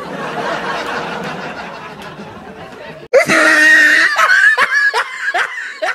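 A hissing noise fading over about three seconds, then a sudden loud burst of laughter that breaks into a quick run of short, falling 'ha' sounds.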